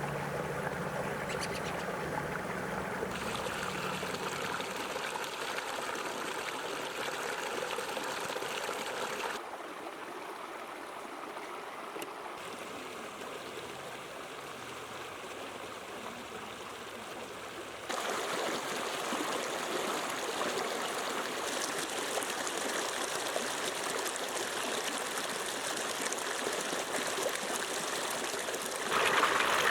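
Running water, a steady flowing rush, which drops in level suddenly about nine seconds in and rises again about eighteen seconds in.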